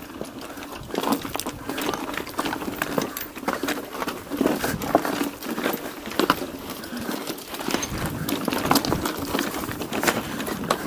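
Mountain bike clattering over rough ground, with irregular clicks and knocks from the bike and its tyres on stones over a steady low hum.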